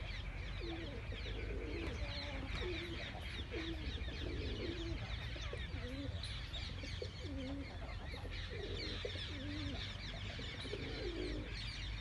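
Domestic pigeons cooing over and over, with a steady chatter of high-pitched chirps from small birds underneath.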